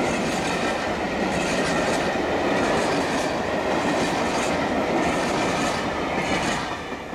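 Passenger coaches of a train rolling past at speed, a steady rumble of wheels on rail with regular clicks, fading away near the end as the last coach goes by.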